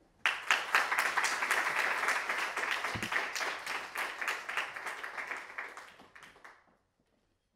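Audience applauding, starting all at once and dying away over the last couple of seconds.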